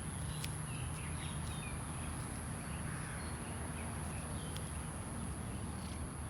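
Outdoor background: a steady low hum and a steady very high thin tone, with a few faint short chirps and light clicks scattered through.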